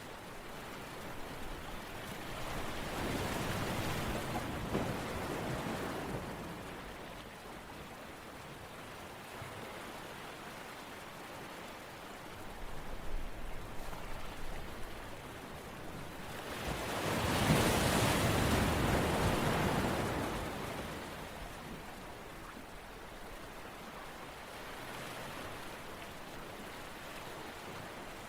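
Steady rushing water noise that swells and fades back twice, loudest about two-thirds of the way through.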